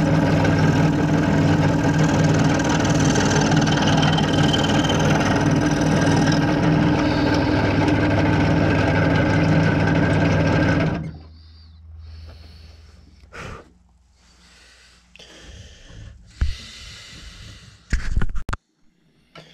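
Scroll saw running and cutting thin wood, a steady mechanical hum and buzz. It stops abruptly about eleven seconds in, leaving a few faint knocks and handling noises.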